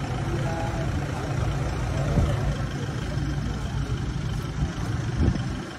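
Vehicle engines idling, a steady low rumble, with a few faint knocks.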